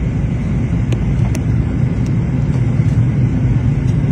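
Airliner cabin noise during takeoff: a steady low rumble of engines and airflow heard from inside the cabin, with two faint ticks about a second in.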